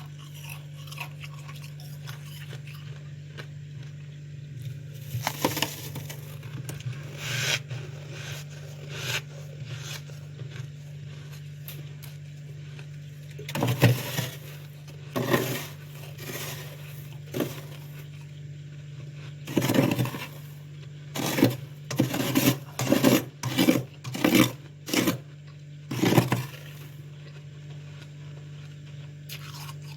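Freezer frost scraped and crunched in irregular bursts, with a few clustered runs of short crackly strokes and quieter stretches between them. A steady low hum runs underneath.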